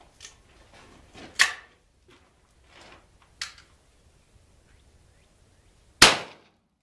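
Two sharp clicks, then about six seconds in a single loud shot from a Hatfield .410 single-shot break-action shotgun firing a 2½-inch birdshot load, with a short echo after.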